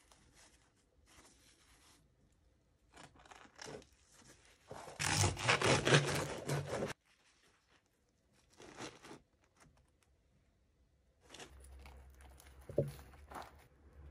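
Crisp crust of a baked schiacciata toscana (Tuscan focaccia) crackling and crunching as it is handled and broken open. The crackles are scattered, with the loudest, densest crunching from about five to seven seconds in.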